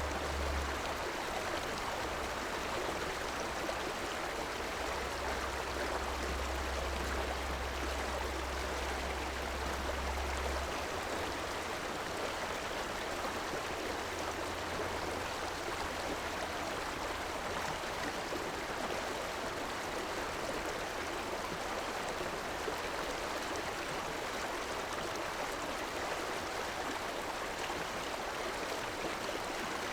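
River water flowing and rushing steadily, an even burbling wash. A low rumble sits underneath for the first third and fades about eleven seconds in.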